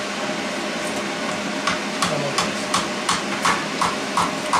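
A hammer tapping a scraper blade into the seam of a GM 14-bolt axle's differential cover to break the gasket-maker seal. The light strikes start a couple of seconds in and come about three a second.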